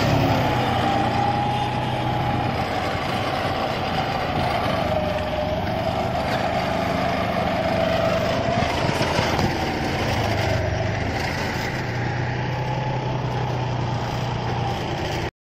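John Deere tractor's diesel engine running steadily under load while pulling a tine cultivator through dry soil, with a wavering whine above the engine note. The sound cuts off suddenly near the end.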